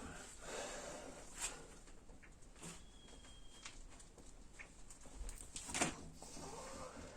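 Faint handling noises as a tire plug is pushed into a tire with a plug insertion tool: scattered clicks and rustles, a short high squeak about three seconds in, and a louder knock a little before the end.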